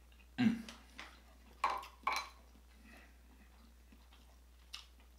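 Crab shells and dishes knocked against a plate as they are handled: five short knocks and clatters, the loudest about half a second in, three more over the next two seconds and a last one near the end.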